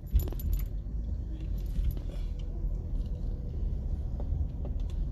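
Car cabin noise: a steady low rumble of the car running, with keys jingling briefly at the start.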